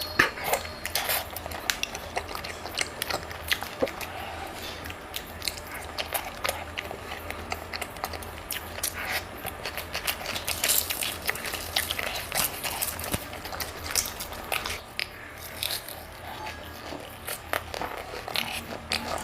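Close-miked mouth sounds of a person eating: biting and chewing food with a stream of irregular wet clicks and smacks.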